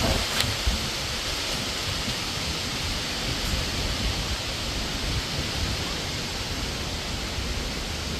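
Strong wind blowing steadily, a continuous rushing noise with low rumbling buffeting on the microphone.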